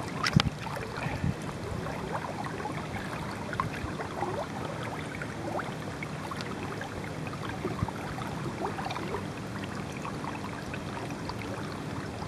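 Water gurgling and rushing along the hull of a Hobie Adventure Island sailing kayak under way, with scattered light ticks and a slightly louder knock shortly after the start.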